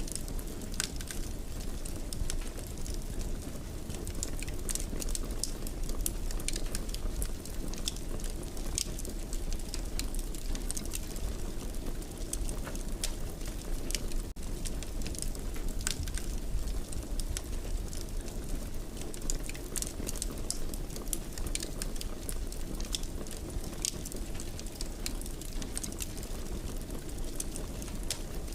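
Wood fire in a fireplace crackling, with frequent small sharp pops and snaps over a steady low rush of burning.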